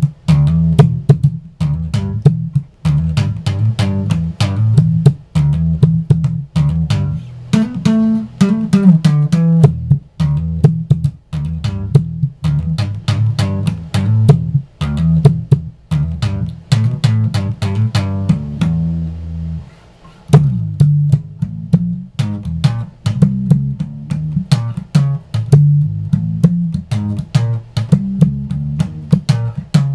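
Squier Affinity Precision Bass played slap style with the tone knob fully off: a fast run of sharp thumb slaps and string pops over deep low notes, with a brief pause about two-thirds of the way through.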